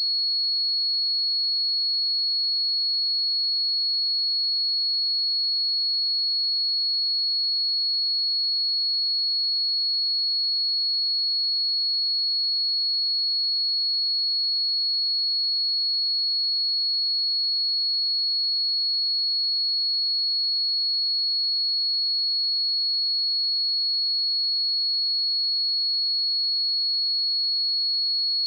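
A pure 4346 Hz sine-wave test tone: one steady high-pitched tone held at a constant level without change.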